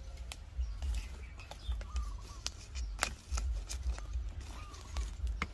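Scattered sharp knocks and clicks over a low rumble, from a clamped wooden workpiece being handled and set in place.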